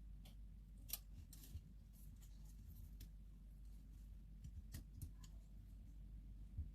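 Faint, scattered small plastic clicks as the snap latches of a compact camera's zoom lens unit are pried loose by hand, over a low steady hum.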